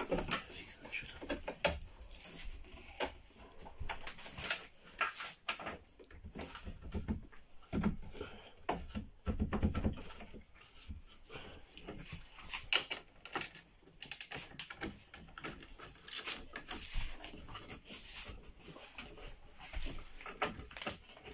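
Irregular clicks, taps and knocks of a screwdriver and hands working on a chipboard bed frame as it is assembled, with a few duller bumps about eight and ten seconds in.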